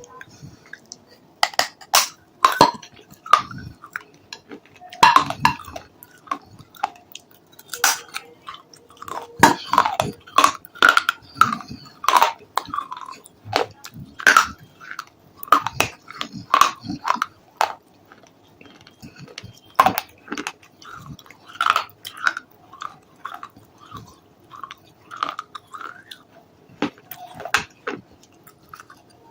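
A person biting and chewing something crunchy close to the microphone: irregular crisp cracks and crunches, several a second at times, with short pauses between bites.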